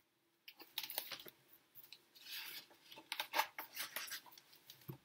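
Pages of a picture book being turned and handled: faint paper rustles and small clicks, with a longer rustle a little over two seconds in.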